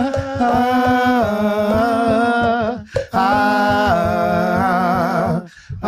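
Men singing pagode a cappella, with no instruments, drawing out long held notes with vibrato. There is a short breath break about three seconds in, then another long held phrase that stops just before the end.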